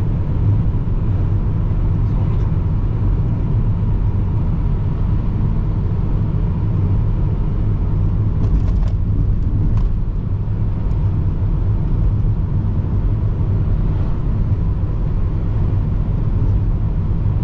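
A vehicle engine running steadily under way, a low even drone, with a few faint clicks and rattles about halfway through.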